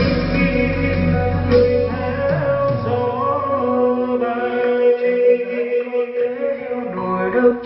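A recorded song with a singing voice played through a Ronamax MV18 trolley karaoke speaker with a 15-inch bass driver. The deep bass drops away about halfway through while the vocal line carries on.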